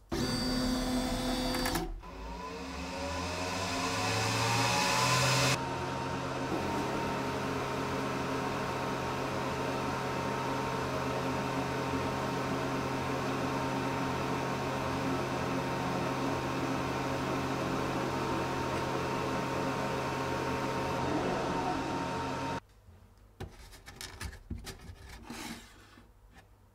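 Diode laser engraver running while it engraves steel. A motor spins up with a rising whine over about three seconds, then runs with a steady hum and whine, and cuts off abruptly near the end. Light handling clicks follow.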